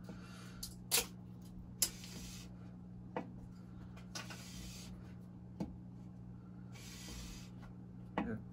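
Steel wood turning knife being stroked back and forth over wet 1500-grit sandpaper on a glass plate: a soft gliding hiss with each stroke, about a second at a time, with a few light clicks. The gliding rather than scraping sound is the sign of the bevel being held flat on the paper.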